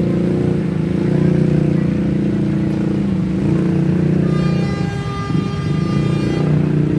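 Passenger train pulling away behind a CC 201 diesel-electric locomotive: a steady low drone, with a horn sounding for about two seconds past the middle.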